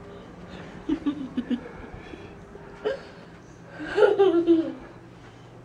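A small child giggling in short bursts, with a louder, gliding laugh about four seconds in.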